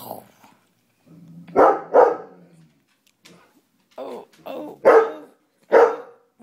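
A dog barking: about six short, separate barks, a loud pair about a second and a half in and two more loud ones near the end.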